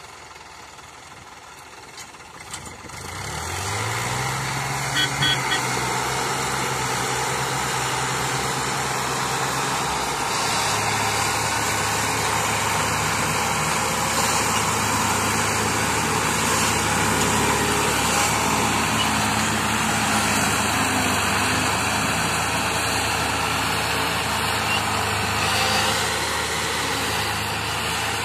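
Diesel engines of a New Holland tractor and an HMT tractor working hard to pull a fully loaded sugarcane trolley. The engines rev up about three seconds in and then run loud and steady, the pitch dropping a little about ten seconds in.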